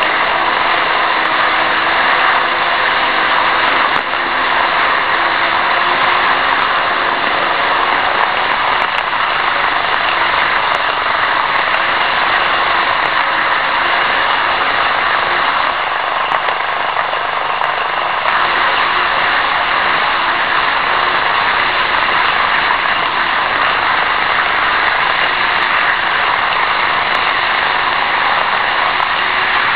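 N-gauge model trains running on the track, picked up right on board by a tiny keyless camera riding on a wagon pulled by an EF66 locomotive model: a steady whirring of wheels on rails and small motors.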